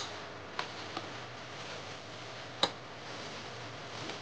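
Metal spoon and fork clicking against a plate while eating: a few short separate clicks, the loudest about two and a half seconds in, over a steady background hiss.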